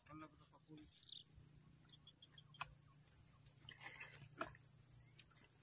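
Steady high-pitched chirring of insects, with a few faint bird chirps over it in the first half.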